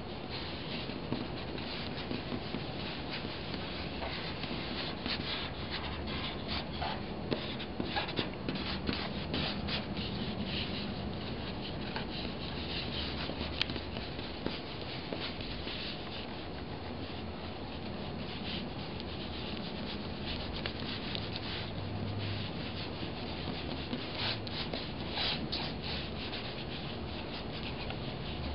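Two pens scratching across drawing paper at once in many quick, short strokes.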